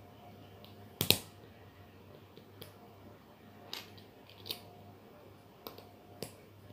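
Plastic Lego bricks clicking and knocking as they are handled and pressed together by hand: a series of short sharp clicks, the loudest a double click about a second in.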